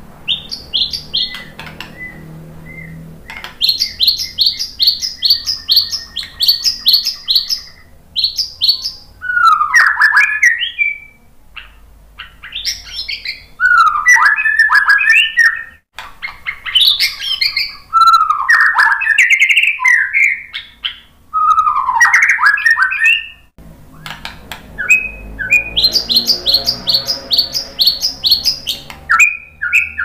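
White-rumped shama singing: runs of rapid, evenly repeated high notes alternate with loud, varied warbling phrases lower in pitch, with short pauses between phrases.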